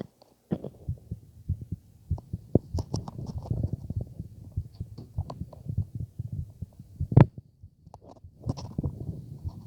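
Heartbeat heard through a stethoscope on the chest: repeated dull, low thumps with scattered clicks of the chest piece, a louder knock about seven seconds in and a brief lull just before eight seconds.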